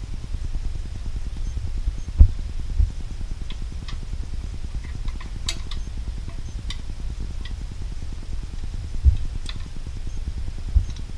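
Small metal clicks and clinks of a steel spring being hooked back onto a gun-rack lock's cam by hand, with four dull knocks against the rack's steel plate, over a steady low hum.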